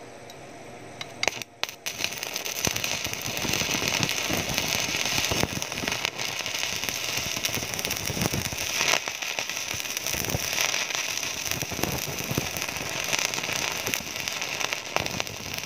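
Stick-welding arc from an inverter welder burning a 6013 electrode. It sputters a couple of times as it is struck about a second in, then settles into a steady crackle while the bead is laid.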